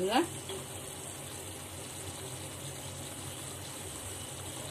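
Sugar syrup boiling steadily in a steel pot.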